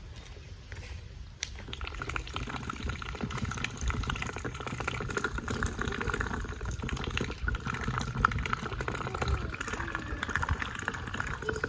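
Muscovy ducks dabbling and drinking from a water-filled PVC-pipe trough: quick wet splashes, clicks and gurgles of bills in water, starting about a second and a half in.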